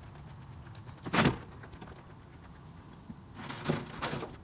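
Loose scrap being tipped from a plastic tote into a metal recycling bin: one loud knock about a second in, then a few clattering knocks near the end.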